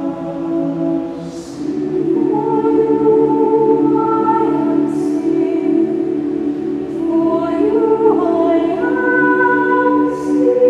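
Choir singing slow, sustained chords that move to new harmonies twice, with a crisp 's' sung together three times.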